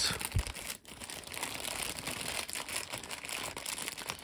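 Clear plastic packaging bag crinkling and rustling as hands pull and work it open, a dense run of small crackles with a brief pause just under a second in.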